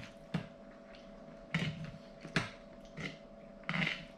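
A person eating with a fork: a couple of sharp clicks of the fork on the plate and short bursts of chewing and breathing noise, over a faint steady hum.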